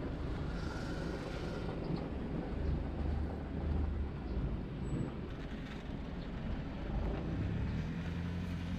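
SUV driving: steady low engine and road rumble.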